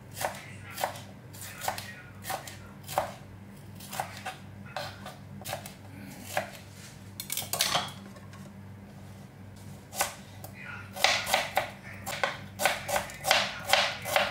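Kitchen knife slicing a red bell pepper and then a red onion on a plastic cutting board: sharp knocks of the blade on the board, about one a second at first, then a quicker run of cuts, about three a second, in the last few seconds.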